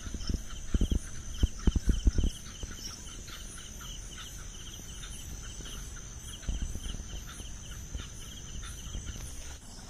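Night insects, crickets among them, chirping steadily: a continuous high trill with a quicker pulsing chirp over it. A cluster of loud low thumps and knocks fills the first two seconds or so.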